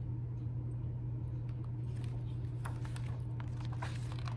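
A picture book being handled and its page turned: faint paper rustles and light taps in the second half, over a steady low hum of room tone.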